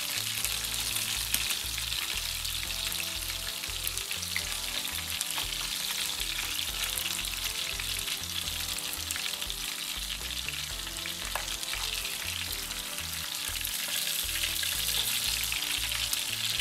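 Flour-dredged unicornfish pieces sizzling steadily in hot oil in a frying pan, with a few light clicks of a fork against the pan as the pieces are lifted out.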